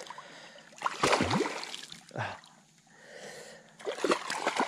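A small hooked tarpon thrashing at the surface beside the boat, splashing water in several irregular bursts.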